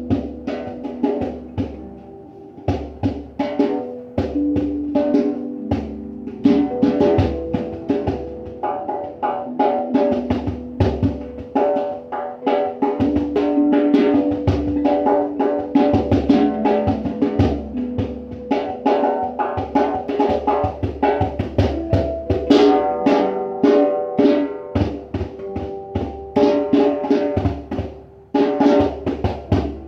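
A hand drum played in a steady rhythm, with held melodic notes from another instrument changing pitch over it.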